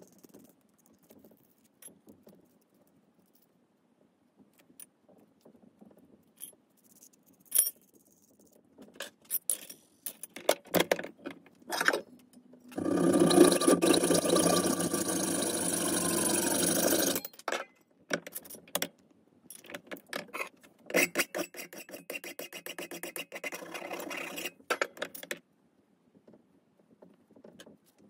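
Small steel parts clicking and clinking as nuts are run onto a threaded steel stud. A saw then cuts through the stud, which is clamped in a bench vise, for about four and a half seconds, with a tone that falls away as the cut stops. More clicks follow, then a second, quieter stretch of rasping lasting about four seconds.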